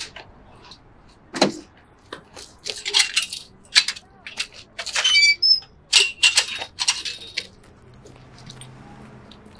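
Metal chain-link gate and its latch being worked open and shut: a series of clanks and rattles, with a short metallic squeak about halfway through.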